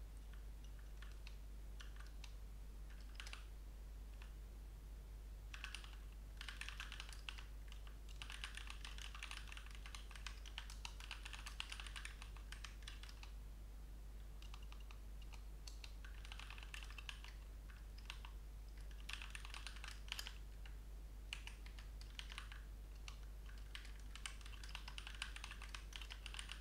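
Typing on a computer keyboard: a few scattered keystrokes at first, then bursts of rapid keystrokes with short pauses between them, over a steady low hum.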